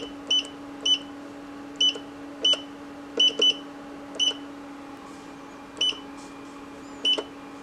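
Artillery Sidewinder X1's MKS TFT28 touchscreen beeping once for each key press: about ten short, high beeps at an uneven pace as G-code is typed in, over a steady low hum.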